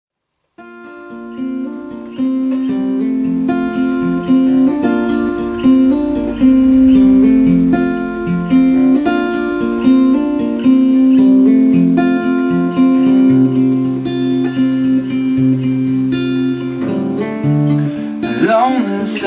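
Solo acoustic guitar playing a folk song's instrumental intro, picked notes over a repeating lower line, starting about half a second in. A man's singing voice comes in right at the end.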